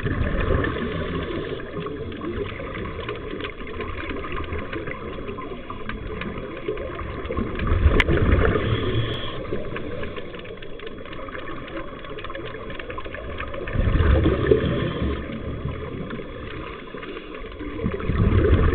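Underwater sound of scuba divers breathing through their regulators: a steady rushing rumble with three louder gurgling swells of exhaled bubbles, about eight, fourteen and eighteen seconds in.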